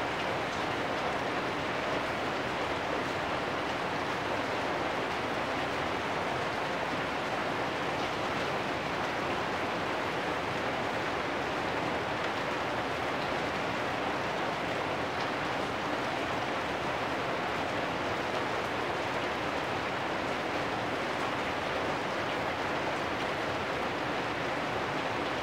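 Steady rain falling on corrugated metal roofs, a continuous even hiss of drops with no breaks or single hits standing out.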